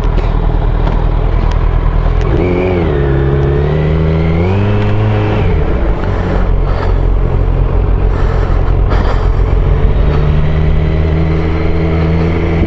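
Motorcycle engine running at low speed through the ridden bike: the revs rise, dip and rise again between about two and five seconds in, then hold steady.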